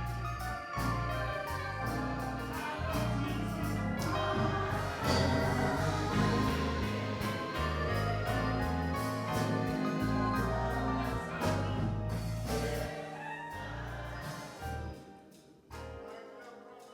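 Church music: organ-led instrumental playing sustained chords over a moving bass line. The bass drops out and the music fades down near the end.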